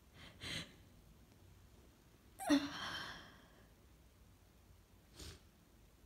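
A person sneezing once, loudly and suddenly, after a quick sharp intake of breath. The sneeze starts with a brief voiced catch and trails off over about a second, and a short breath follows near the end.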